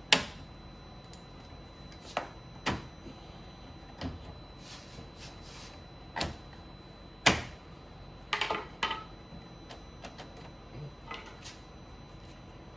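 Sharp plastic snaps and cracks as long-handled cutters bite through the plastic mounts of a BMW's active grille shutter assembly. They come one at a time a second or two apart, the loudest right at the start and about seven seconds in, with a quick cluster of cracks around eight to nine seconds in.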